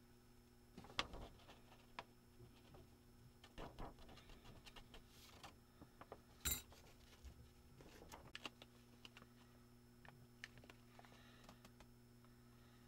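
Faint, scattered clicks and small metallic clinks of tools and parts being handled on a workbench, the sharpest about a second in and again past the middle, over a steady low hum.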